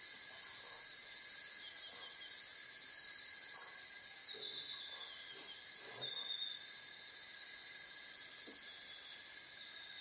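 Steady insect chorus of several shrill, even tones, growing slightly louder a few seconds in.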